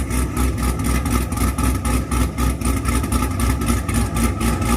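Car engine fitted with an MSD 2-step launch control idling steadily, with an even pulsing beat of several firing pulses a second and no revving.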